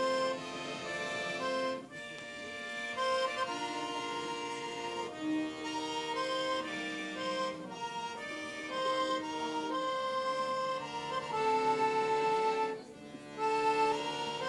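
Accordion playing a traditional folk tune in long held notes, with a brief break between phrases about two seconds in and again near the end.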